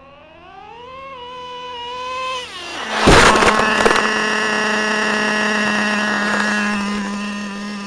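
Nitro engine (TRX 3.3) of a Traxxas Slayer Pro 4x4 RC truck rising in pitch as the truck speeds toward the microphone, then a loud crash about three seconds in as it slams into the camcorder. Afterwards the engine keeps running steadily at a high pitch, close up.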